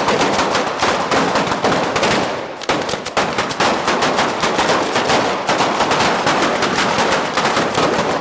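A traca, a long string of firecrackers, going off in a rapid, unbroken rattle of loud bangs as a falla monument is set alight, with a short lull about two and a half seconds in.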